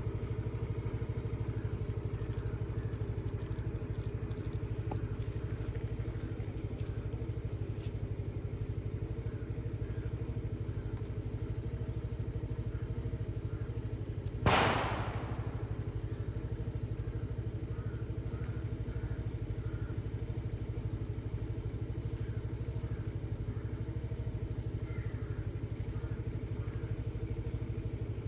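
An engine running steadily at idle, with one sharp loud thud about halfway through.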